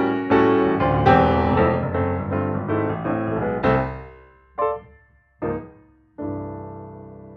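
Background piano music: a busy run of notes that thins out into two short separate chords, then a final chord about six seconds in that rings on and fades.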